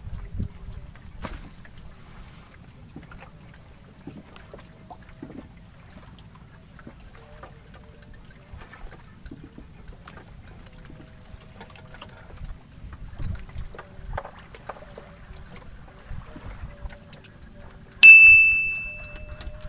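A single loud, bell-like ding about 18 seconds in, ringing one clear high note that dies away over about a second and a half. Before it, only a quiet background with scattered small knocks of handling on the wooden raft.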